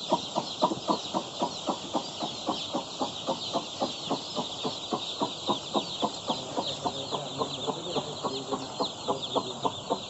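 A brooder full of young broiler chicks peeping: a dense, continuous chorus of short high chirps, with a quick regular pulsing lower down about three or four times a second.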